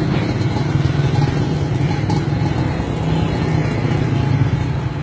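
Small motorcycle engine running close by, a steady low engine note.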